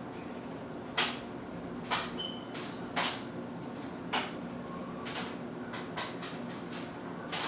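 Short, sharp scratchy strokes about once a second, over a faint steady hum: hand work on paper at a table.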